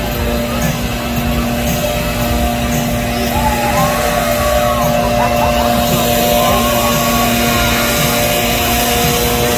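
Open-air ballpark ambience: a steady rumble of wind on the phone microphone over a few held steady tones, with faint distant voices calling out twice in the middle.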